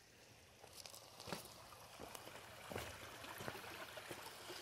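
Shallow creek water trickling faintly over stones, with a few soft footsteps at an even walking pace.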